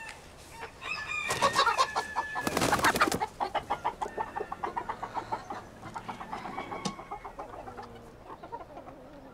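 Bantam chickens clucking and squawking: a loud burst of squawks in the first few seconds, then a quick run of clucks that slows and fades.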